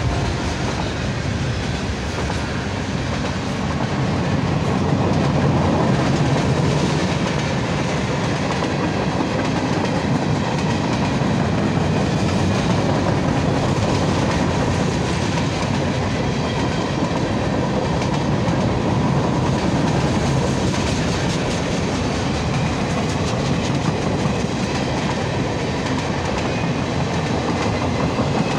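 Freight cars rolling past close by: a steady rumble of steel wheels on rail with a clickety-clack of wheels over the rail joints, slightly louder a few seconds in.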